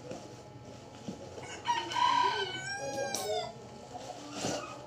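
A rooster crowing once, one call of just under two seconds that starts about one and a half seconds in.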